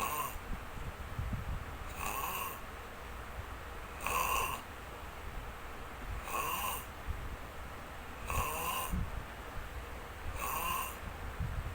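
Snoring: a low rattling rumble, with a short hissing, whistling breath sound about every two seconds.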